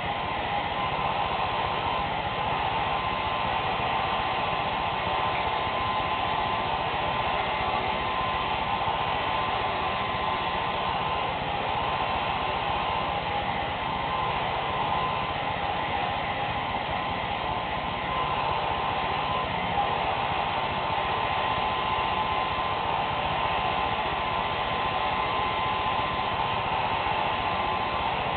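Handheld hair dryer blowing steadily, a continuous rush of air with a faint motor whine.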